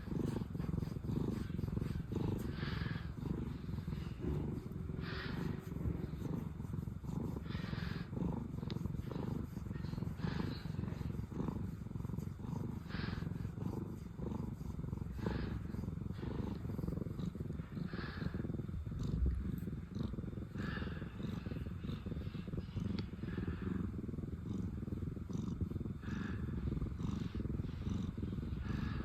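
Domestic cat purring steadily, a continuous low rumble that swells with each breath about every two and a half seconds.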